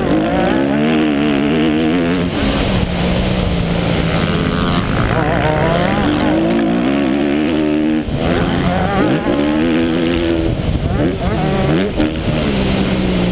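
A 250 cc Honda motocross bike's engine heard close up from on board, revving hard as the rider accelerates and shifts through the gears, its pitch climbing and dropping several times.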